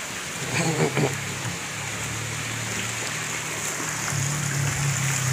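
Water rushing steadily, pouring from pipes into a fish pond, with a short louder sound about a second in.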